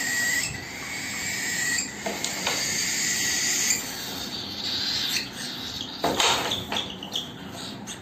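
Cockatiel calling with harsh, raspy screeches, a steady whistle-like note in the first two seconds and a louder call about six seconds in.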